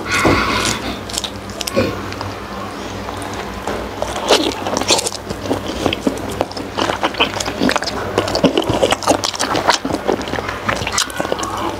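Close-miked chewing of soft, tender steamed pork skin: wet mouth sounds with many short, irregular clicks and smacks.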